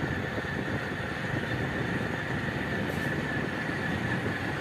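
Steady running noise of a moving vehicle: engine and road rumble with a constant high whine.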